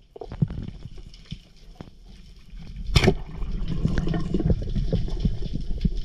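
A speargun firing underwater about halfway through: a single sharp crack, followed by steady low rushing and rumbling water noise.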